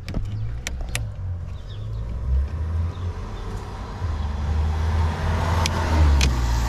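Low rumble of a running vehicle that grows louder in the second half, with a few sharp metallic clicks from pliers working the spring hose clips on a diesel fuel filter, two about a second in and two near the end.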